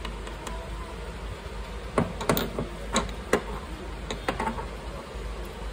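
Several short knocks and clicks, a quick cluster about two seconds in and a few single ones after, over a steady low hum.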